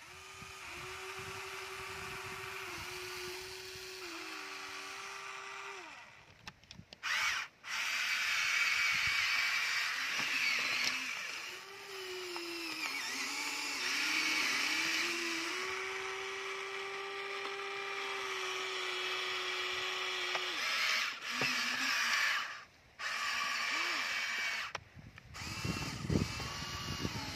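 Electric motors of a Huina remote-control toy excavator whining as the boom, arm and bucket move, the pitch stepping up and down with each movement and cutting out briefly a few times. Near the end, gravel clatters as the bucket dumps it into a plastic toy dump truck's bed.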